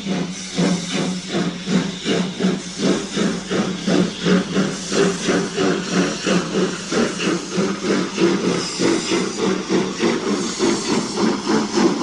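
German 2-10-0 steam freight locomotive working under steam, its exhaust beating in a steady rhythm of about three beats a second, with a hiss of steam from the cylinders.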